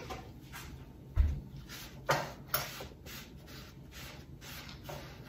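A few scattered knocks and clicks of things being handled on a kitchen counter, the loudest a low thump about a second in.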